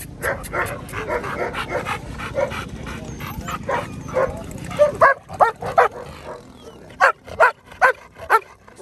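Dog barking repeatedly: a dense run of barks over a low rumble, then three sharp barks about five seconds in and four more near the end.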